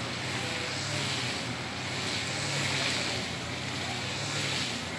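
Steady open-air rushing noise, like wind on the microphone, with a low hum underneath that swells and fades every second or so.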